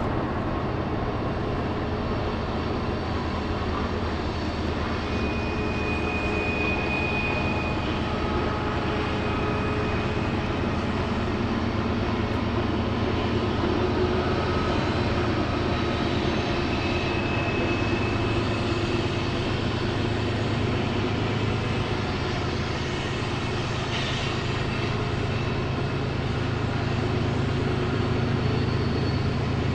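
Diesel-electric locomotives of a long freight train running with a steady, deep engine drone, with a few brief high-pitched squeals over it.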